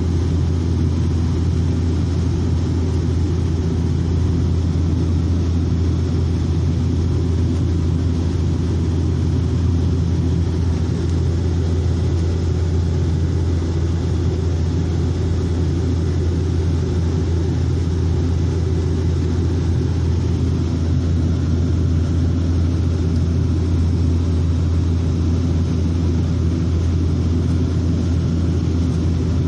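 Steady drone of airliner engines and airflow heard inside the passenger cabin during descent: a strong, unchanging low hum over an even rumble.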